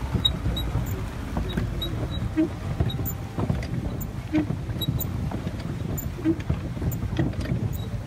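Water rushing and splashing along the side of a small boat under way, with a steady low rumble and a soft splash about every two seconds.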